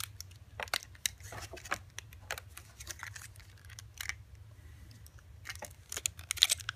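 Small plastic toy parts being handled and pressed onto a plastic toy vehicle: irregular light clicks and taps, some in quick little clusters.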